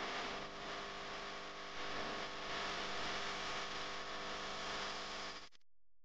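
Steady hiss with a faint, even hum, cutting out abruptly about five and a half seconds in.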